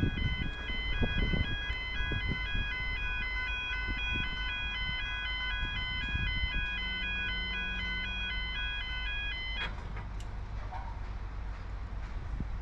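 Electronic railway level crossing warning alarm sounding a steady two-tone alternation, which stops abruptly about nine and a half seconds in, over a low rumble of wind and traffic.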